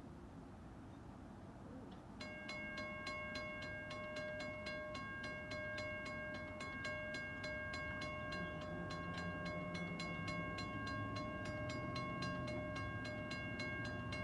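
Railroad crossing bell, a Western-Cullen-Hayes second-generation unit, starts ringing about two seconds in with rapid, even strokes over a ringing tone. This is the crossing activating to warn of an approaching train.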